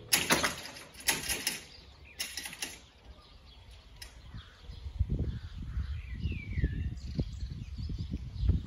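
Level-crossing equipment clanking and rattling in a quick cluster of metallic knocks over the first few seconds, just after the two-tone warning alarm stops. Later come gusts of low wind rumble on the microphone and a single falling bird chirp.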